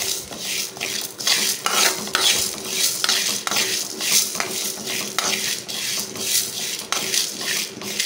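A steel spoon stirring and scraping split lentils (toor, moong and urad dal) as they roast in a metal kadai, the dal rattling against the pan in repeated strokes about two a second.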